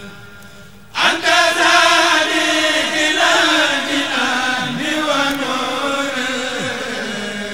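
Voices chanting a Sufi khassida in Arabic. A held note fades at the start, and about a second in the chanting comes back in loudly on a new verse, its melody rising and falling phrase by phrase.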